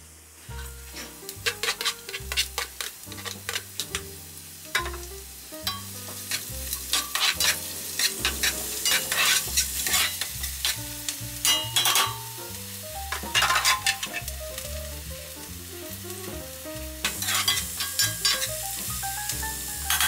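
Chopped green onion sizzling in hot olive oil in a frying pan, stirred with a silicone slotted spatula in repeated strokes that scrape and rustle across the pan. The sizzling and stirring start about a second in and go on in uneven bursts.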